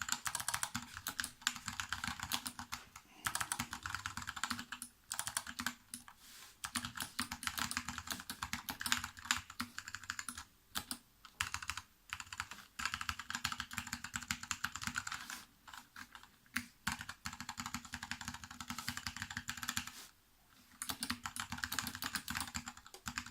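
Fast typing on an Input Club K-Type mechanical keyboard with Kailh BOX switches: a dense run of key clicks, broken by short pauses every few seconds. The board has been dampened with butyl rubber and has clipped, lubed stabilisers.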